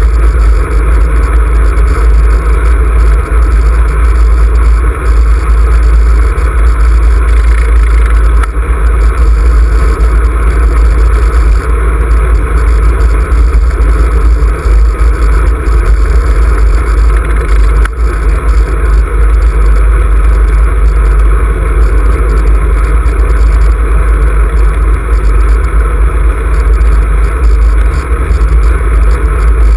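Wind buffeting the microphone of a camera on a moving road bicycle: a loud, steady, deep rumble.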